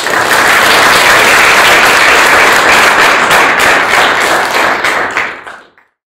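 Audience applauding at the end of a talk, a dense steady clapping that fades out and stops near the end.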